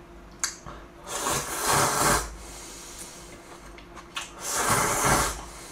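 A person slurping jjamppong noodles twice, each a long, loud, noisy slurp of about a second. A short sharp click comes before each slurp.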